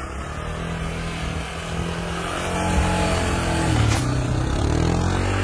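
A small vehicle engine running under throttle, its pitch dipping about four seconds in and then rising again as it revs.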